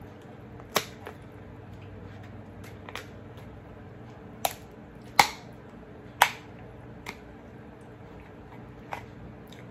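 Kitchen scissors snipping through Alaskan king crab shell: a series of sharp, irregular cracks and snaps, the loudest about five and six seconds in.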